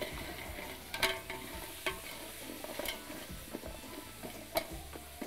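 Wooden spoon stirring crabs in a large aluminium pot over a gas flame, the frying food sizzling, with four sharp knocks of spoon and shells against the metal pot.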